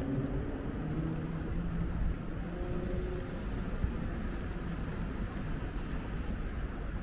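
City road traffic going past: a vehicle engine hum, strongest in the first two seconds, over a steady hiss, with a faint high whine in the middle.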